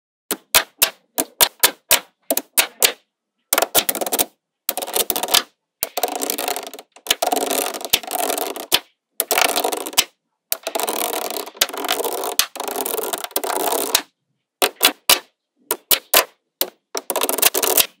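Small magnetic balls snapping together in sharp single clicks. Between about three and fourteen seconds in, they clatter densely in several runs of a second or more as many balls rattle and roll against each other. Single clicks return near the end.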